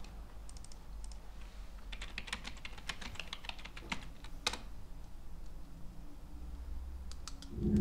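Typing on a computer keyboard: a few keystrokes, then a quick run of keystrokes for a couple of seconds, then a few more near the end, over a faint steady hum. A louder low rumble starts just before the end.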